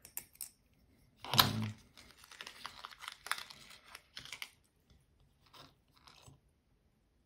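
Small plastic zip bag of screws crinkling and rustling as it is handled and opened, with a sharp crackle about a second in, followed by a few light clicks as carbon-fibre frame plates are handled.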